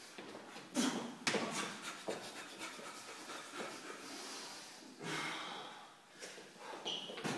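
Practitioners breathing hard during sparring, with several sharp exhales through the nose and mouth, one longer exhale a little after the middle, and a few short knocks.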